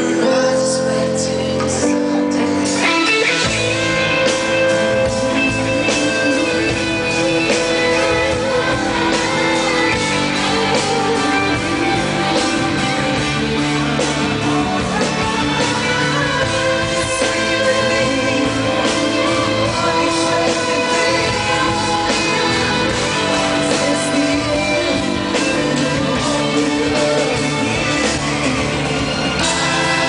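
Male pop vocal group singing live into microphones over band accompaniment. The accompaniment starts sparse, and the fuller band with bass and drums comes in about three and a half seconds in.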